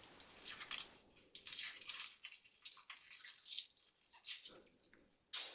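Foil wrapper of a Kinder Surprise chocolate egg crinkling and rustling as it is peeled off by hand.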